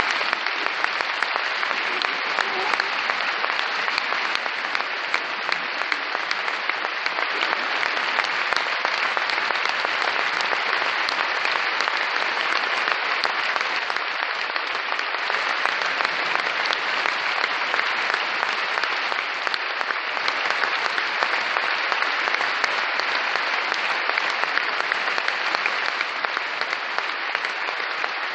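A large audience applauding steadily, many hands clapping together in a dense, even wash of claps.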